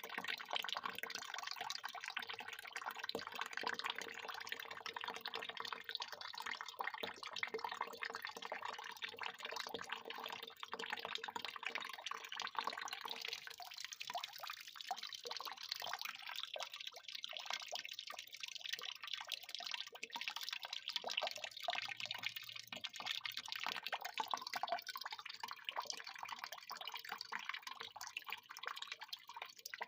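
Water pouring in a continuous stream and splashing. About halfway through, the deeper part of the sound falls away and it turns thinner and higher.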